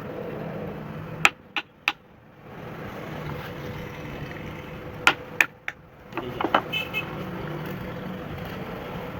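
Sharp knocks or taps, three in quick succession about a second in and three more about five seconds in, followed by a run of smaller clicks, over a steady background hum of traffic.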